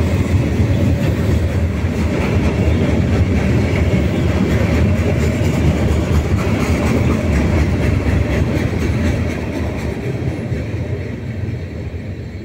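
Freight train's gondola cars rolling past close by, steel wheels running on the rails in a steady low rumble; it fades over the last few seconds as the end of the train goes by.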